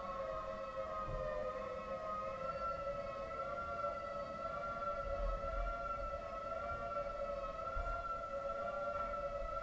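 3T22A outdoor warning siren sounding a steady two-pitch chord that wavers slightly, held level throughout.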